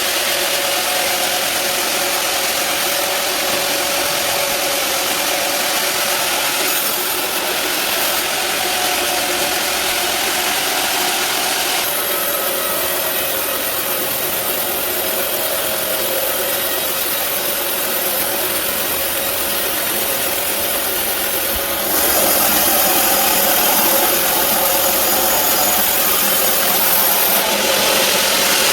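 Sawmill bandsaw running steadily with a hum. Its sound changes about 12 seconds in and again about 22 seconds in, growing a little louder at the second change.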